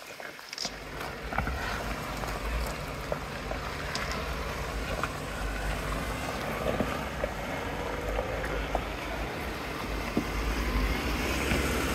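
Jeep Wrangler crawling slowly over loose rocks: the engine running at low revs with stones crunching and clicking under the tyres, and wind rumbling on the microphone.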